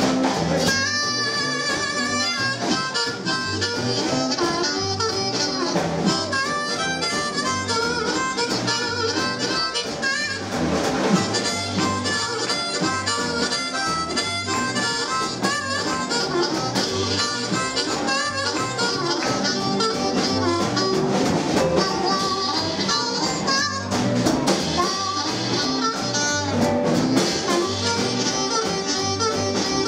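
Live blues band playing an instrumental passage led by a blues harp (harmonica) solo. The harp is cupped against a microphone and played in quick runs and held notes over a shuffle on a drum kit and upright double bass, with electric guitar.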